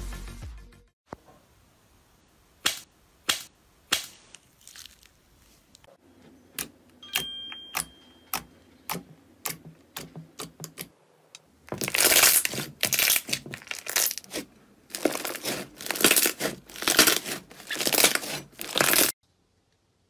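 Slime being pressed and poked by hands: sparse sharp sticky pops and clicks, then bursts of crackling squish about twice a second in the second half, which stop suddenly near the end. The tail of an electronic intro tune ends in the first second.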